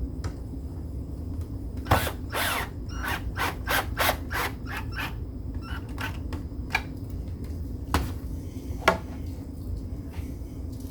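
Power drill driving a pocket-hole screw into wood, in a series of short spurts from about two to five seconds in, followed later by two sharp clicks.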